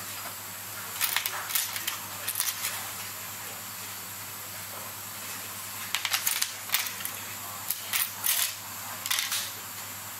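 Small sharp metallic clicks and taps of steel tweezers and tiny watch parts against a Seiko 7S26B movement in its holder during reassembly. They come in short clusters, about a second in and again from about six seconds in, over a steady room hiss.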